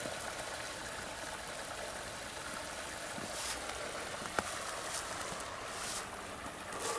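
Creek water running steadily, with one sharp click about four and a half seconds in.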